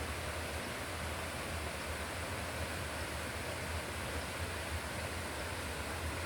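Steady rushing of water, an even hiss over a low rumble with no breaks.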